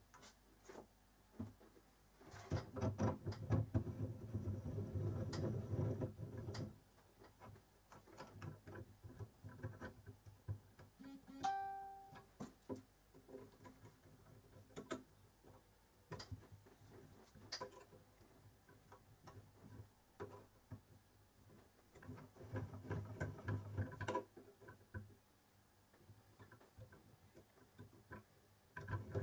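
Scattered light clicks and taps of small metal parts, screws and an Allen key being handled as a handwheel is fitted to a home-built mini lathe's cross slide, under guitar music that swells in twice.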